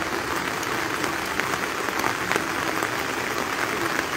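Heavy rain falling steadily, with many small drop impacts ticking close by.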